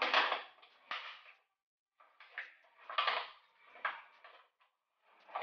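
Packaging being handled and unwrapped, with rustling and crinkling in short irregular bursts separated by brief pauses, as a towel ring is taken out of its pack.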